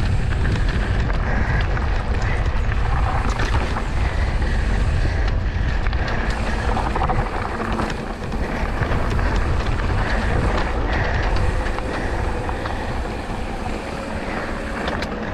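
Wind buffeting the microphone with a heavy, steady low rumble and a few faint clicks, the sound of a mountain bike being ridden down a rough dirt trail.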